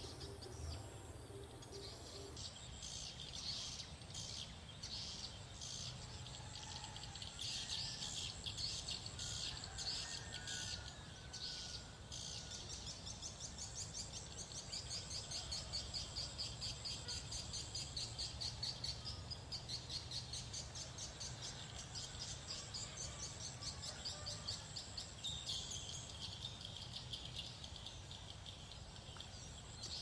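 A continuous high-pitched chirping chorus, pulsing several times a second and growing denser past the middle, with a few faint lower whistled calls around ten seconds in.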